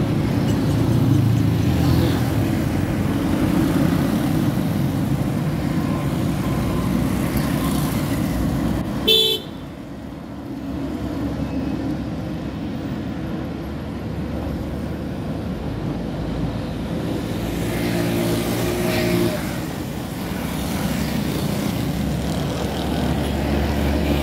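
Road traffic going past: car and motorcycle engines and tyre noise. A brief horn toot comes about nine seconds in, and the traffic is quieter just after it.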